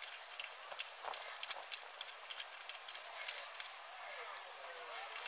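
Irregular clicks and light metallic ticks as a French-built Ford flathead V8 engine is turned over by hand. The crank goes round despite a few stuck valves.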